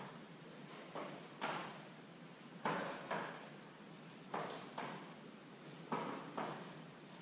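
Feet landing on an exercise mat during cross hops: soft thuds in pairs about half a second apart, a pair coming roughly every second and a half.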